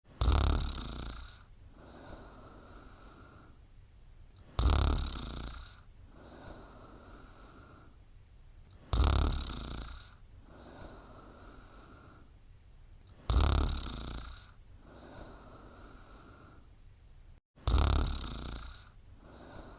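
Steady rhythmic snoring: five snores about every four and a half seconds, each a sudden loud snore on the in-breath that fades over about a second, followed by a softer, longer breath out.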